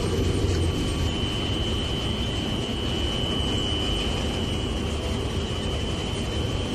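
Foundry sand-handling machinery running: a belt conveyor carrying green sand and a rotating drum give a dense, steady rumble with a constant high whine over it. The low rumble eases slightly about a second in.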